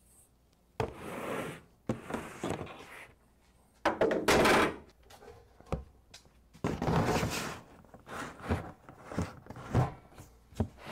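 Plastic storage totes with snap-on lids being handled and set into a pickup's slide-out bed: a series of knocks and thunks, with short scrapes as bins slide and are stacked.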